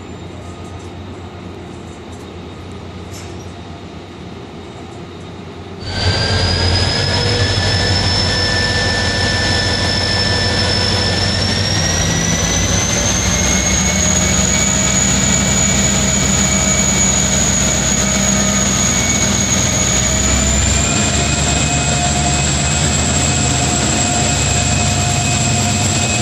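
Korail diesel locomotive hauling a Saemaeul train as it pulls away: loud engine noise with a high whine that rises in two steps as the engine works up. The first few seconds hold quieter, steady train and platform noise before the sound jumps up abruptly.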